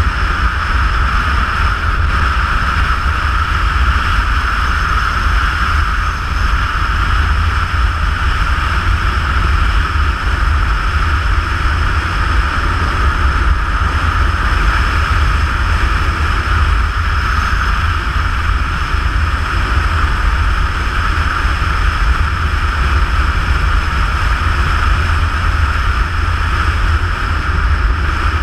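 Steady wind and road noise from a vehicle moving at speed on a mounted camera, with a constant deep rumble and a hiss that hardly changes.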